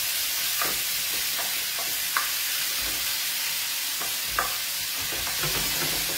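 Wild broccoli sizzling in hot oil in a frying pan as it is stirred and tossed, a steady frying hiss. A few sharp knocks against the pan come with the stirring, the loudest about two and four seconds in.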